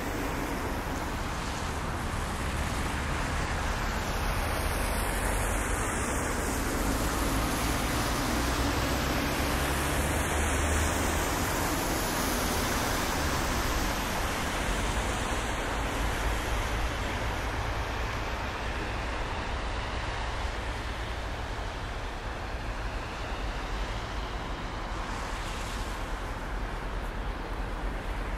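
A steady rush of distant road traffic with a low rumble, swelling slightly for a while before easing off.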